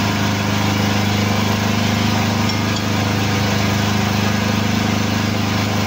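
Hydraulic forklift-tire press's pump motor running with a steady, even hum.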